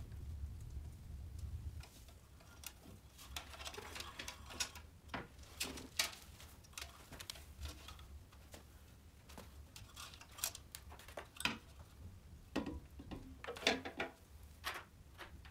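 Scattered clicks, taps and light knocks of parts being handled and fitted against a painted Riga 12 moped frame. A low hum fades out about two seconds in.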